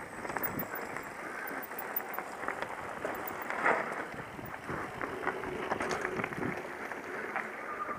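Mountain bike rolling fast down a loose, rocky trail: tyres crunching over stones and a constant rattle of the chain and frame, heard from a camera mounted on the bike or rider. A sharper knock about halfway through.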